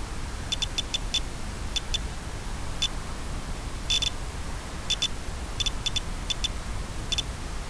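Steady hiss of an analog FPV video link's audio channel, with short, high electronic beeps in quick pairs and clusters throughout, the longest cluster about four seconds in.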